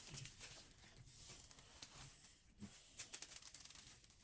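Slime being handled and squeezed: faint, with a quick run of small crackling clicks a little past halfway.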